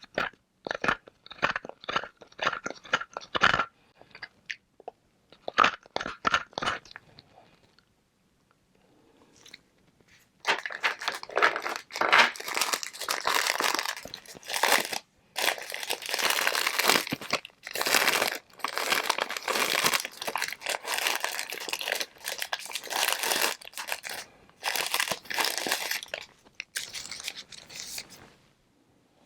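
Hard flavored ice balls being bitten and chewed close to the microphone. It starts with sharp, separate cracks, goes quiet for a few seconds, then turns to dense, steady crunching for most of the rest.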